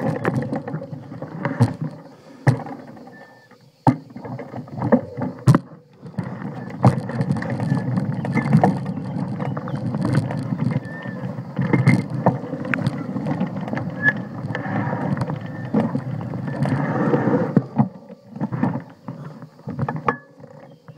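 Mountain bike riding along a dirt trail: tyres rolling and crunching over the ground, with the bike rattling and knocking over bumps. The noise is broken, with scattered knocks, for the first few seconds. From about six seconds in it becomes a steady dense rumble, then near the end it falls back to scattered knocks.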